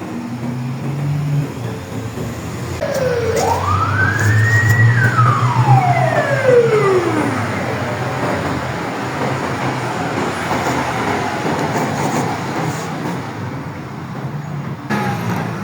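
Ambulance siren sounding one wail: a rising sweep about three seconds in, then a slower fall over about three seconds. Vehicle engine and traffic rumble runs underneath.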